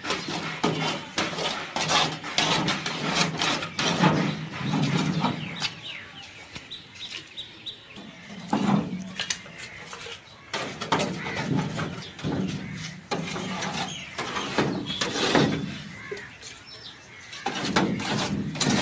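Repeated scraping and rustling strokes from a brush spreading glue over a thin tin freezer liner sheet, with the sheet being handled.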